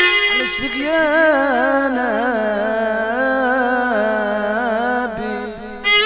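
A voice sings a melismatic mawal line with wavering, ornamented pitch in Tunisian mezwed music, without the mezoued bagpipe. The mezoued's reedy drone comes back in just before the end.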